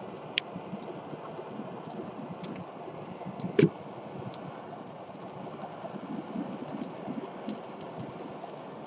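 Fire crackling on a burning plastic yogurt cup: a steady rush of flame with scattered small ticks, a sharp click about half a second in and a louder pop about three and a half seconds in.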